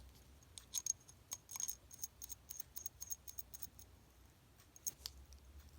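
Faint run of small, sharp metallic clicks from a wristwatch being handled, about five a second for some three seconds, then two more near the end.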